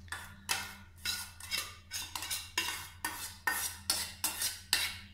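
A steel spoon scraping and clinking against a steel bowl, scooping soaked tamarind out into a metal strainer: short scrapes and taps at about three a second.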